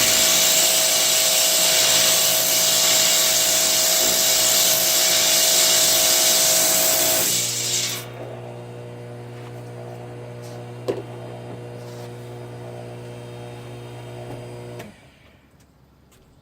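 Pressure washer blasting a jet of water against a metal keg, a loud steady hiss over the pump motor's whine. About eight seconds in the spray stops and the machine's motor keeps humming more quietly, then cuts off near the end.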